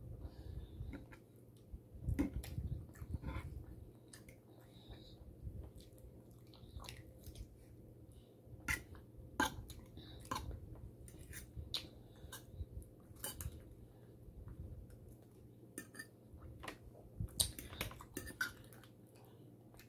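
Eating sounds: a metal fork clinking and scraping on a ceramic plate of food in irregular short clicks, with chewing in between.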